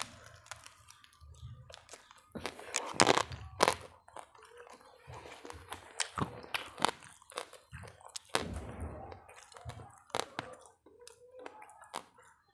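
A person eating close to the microphone: irregular crunchy bites and chewing of crispy food.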